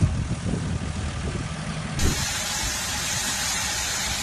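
A vehicle engine running under rough outdoor noise, with a few knocks. About two seconds in, the sound changes abruptly to a steadier, brighter hiss.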